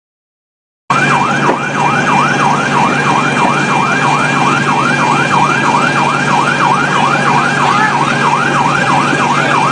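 Emergency vehicle siren in a fast yelp, sweeping up and down about two and a half times a second over a steady low hum. It cuts in abruptly about a second in.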